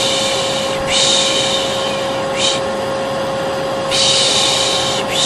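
Rhythmic 'shh, shh' shushing for soothing a colicky baby, each hiss lasting about a second with short breaks, over the steady whine of a running hair dryer.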